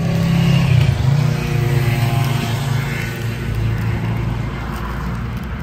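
A motor vehicle's engine running steadily, loudest about a second in and then slowly fading.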